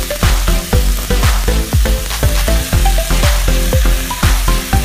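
Marinated beef slices sizzling as they fry in a pan and are stirred with a wooden spatula, under background music with a strong, steady bass beat and short plucked notes.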